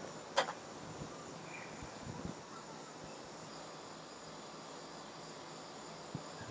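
Faint steady outdoor insect noise, crickets or similar, with a thin high tone running throughout. A single sharp click sounds about half a second in.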